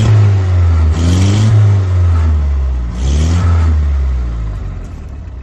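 A 1920s Austin 7's four-cylinder side-valve engine, just crank-started, is revved up and down three times with the hand throttle. Near the end it settles back to a quieter idle.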